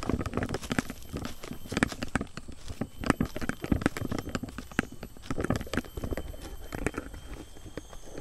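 Hikers' footsteps on a trail: an irregular run of knocks, scuffs and clicks with no steady rhythm.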